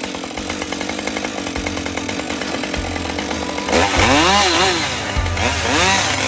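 Husqvarna 550 XP two-stroke chainsaw running steadily, then from about four seconds in getting louder, with the pitch rising and falling repeatedly.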